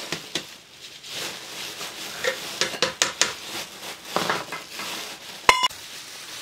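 Metal sieve and metal tray knocking and clinking as flour is sifted and handled, over a soft rustle. One loud ringing metal clink comes about five and a half seconds in.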